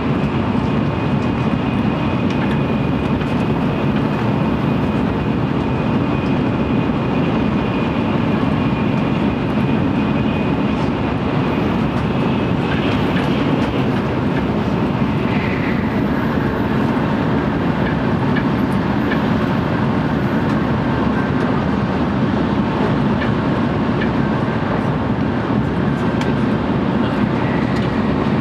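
Running noise heard inside an N700 series Shinkansen motor car travelling at speed: a steady, dense rumble of wheels, rails and air. A faint high whine sits above it and drops in pitch about halfway through.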